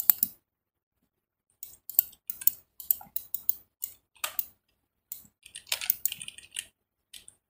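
Computer keyboard keystrokes and mouse clicks: irregular short taps and clicks starting nearly two seconds in, with a denser run about six seconds in.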